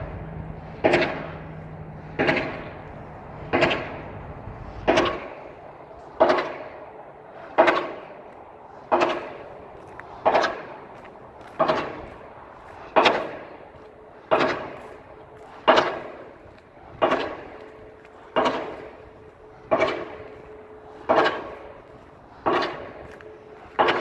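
Pile driver hammering piles for a railroad bridge: heavy metallic blows at a steady pace of about one every 1.35 seconds, each ringing out before the next.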